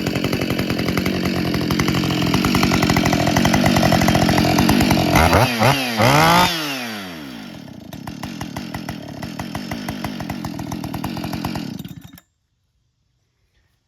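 Husqvarna 572 XP two-stroke chainsaw running with its newly fitted ignition coil. It is revved up and back down twice about halfway through, then settles to idle, and the sound cuts off suddenly near the end. It is now running well after the no-start, which the fresh coil has cured.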